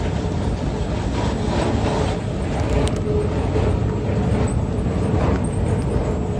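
Steady low vehicle rumble with no clear pauses.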